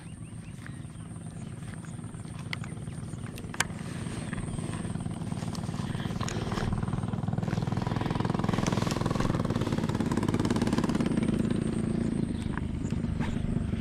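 A small engine running steadily, growing louder over the first half and then holding level, with one sharp click a few seconds in.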